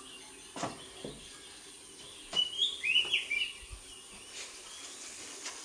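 A bird chirping: a quick cluster of short, high notes a couple of seconds in, after two faint clicks.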